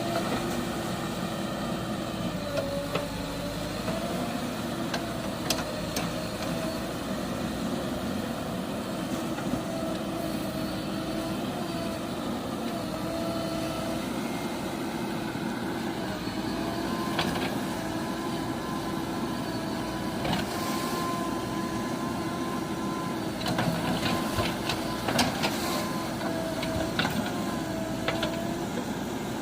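Heavy diesel vehicle engine idling steadily, its pitch dipping briefly a couple of seconds in, with scattered clicks and knocks that come more often near the end.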